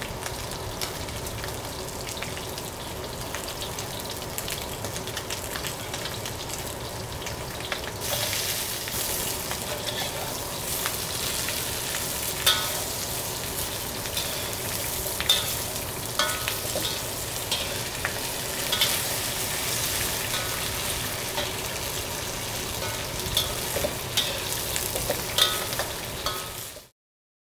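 Cubed pork belly sizzling in hot oil in an iron wok with scallion and ginger, being browned until golden and turned with a wok spatula. The sizzle grows louder about eight seconds in, with clinks of the spatula against the wok scattered through the rest, and it stops abruptly near the end.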